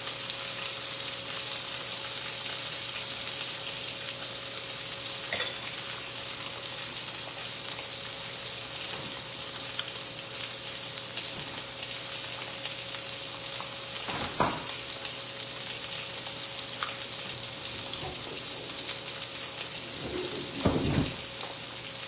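Marinated chicken pieces sizzling steadily in hot oil in a frying pan. They are still frying and not yet cooked through. A faint steady hum runs underneath, with a sharp knock about two-thirds of the way through and a short clatter near the end.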